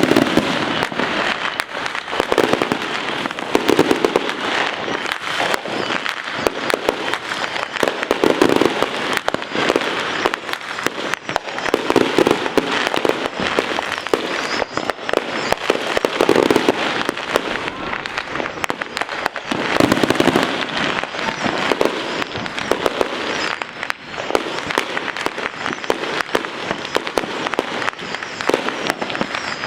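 Fireworks and firecrackers going off without pause: a dense, continuous clatter of pops and crackles, with louder bursts every few seconds.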